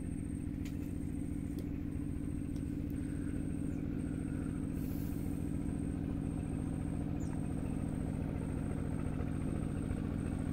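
A small engine running steadily at an even speed, a constant hum that does not rise or fall.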